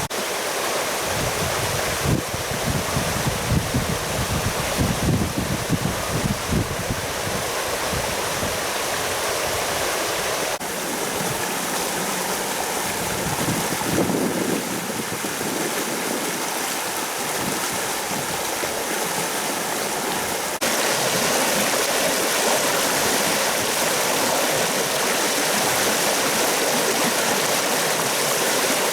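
River rapids rushing, a steady dense wash of fast-flowing water. The sound changes suddenly twice, about a third and two-thirds of the way through, and is a little louder after the second change.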